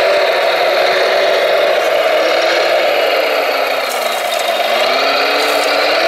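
Radio-controlled Volvo L250G wheel loader model running with a steady mechanical whir as it raises its loaded bucket. The pitch drops about four seconds in and rises again near the end.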